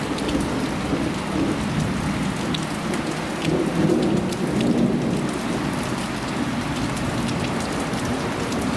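Heavy rain pouring down steadily, with drops ticking on surfaces, and a low thunder rumble swelling about four seconds in.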